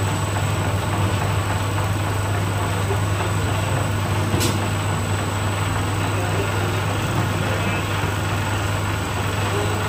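Flexo label printing machine running steadily while die-cutting plain barcode labels: a continuous low hum with a thin high whine over it, and a single sharp click about four seconds in.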